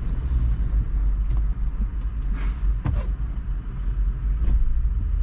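Land Rover V8 engine running at low speed on a rock-crawling trail, a steady low rumble. A few sharp knocks sound through it, the loudest just under three seconds in.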